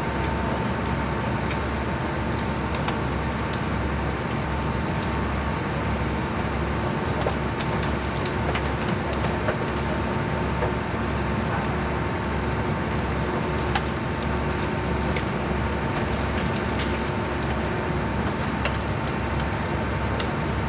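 Engine running steadily: a low, evenly pulsing drone with a faint steady whine above it and a few light ticks.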